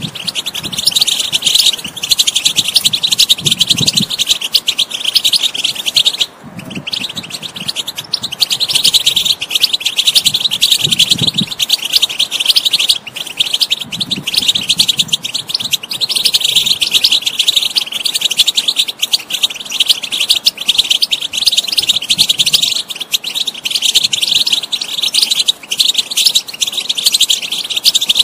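European goldfinch singing: a fast, unbroken twittering and chattering song, with a brief pause about six seconds in.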